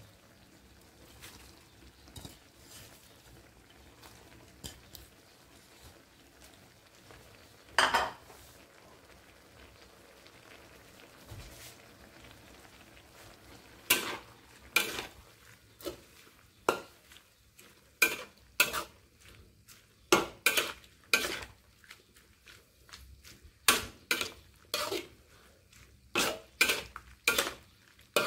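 Metal spatula scraping and clanking against a wok while squid in curry sauce is stir-fried, over a faint sizzle. Mostly quiet in the first half apart from one clatter, then from about halfway in a quick run of sharp scrapes and knocks as the food is turned.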